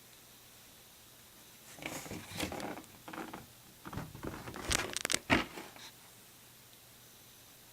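Cardboard gatefold record sleeve being handled, rustling and sliding for about four seconds starting about two seconds in, with a sharp tap near the end as the sleeve is closed or set down.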